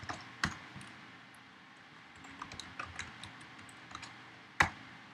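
Computer keyboard typing: scattered light keystrokes, with two louder key clicks, one about half a second in and one near the end.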